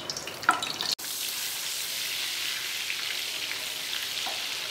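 Butter sizzling and foaming in hot oil in a kadhai while a wooden spatula stirs it. A steady frying sizzle comes in abruptly about a second in, after a few faint scrapes.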